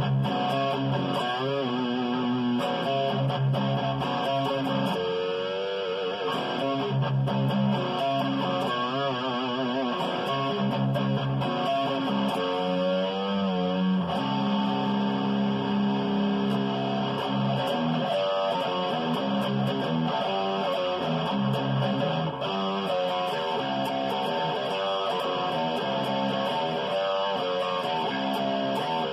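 Ibanez electric guitar played as a continuous run of picked notes and held tones, some of them wavering in pitch with vibrato or bends.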